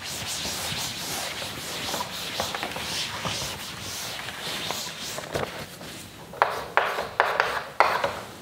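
A duster wiping a chalkboard with steady back-and-forth rubbing, followed about six seconds in by a few short, sharp strokes of chalk writing on the board.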